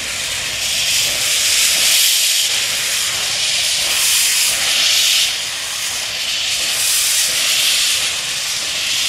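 Narrow-gauge steam locomotive creeping forward with its cylinder drain cocks open, blowing out steam in a loud continuous hiss that swells and eases every second or two.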